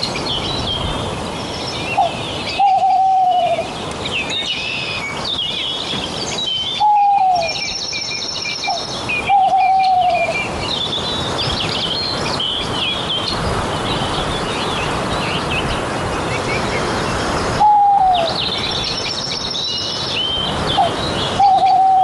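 Bird calls: a short falling call repeats five times, a few seconds apart, over steady high chirping of small birds and a soft background hiss.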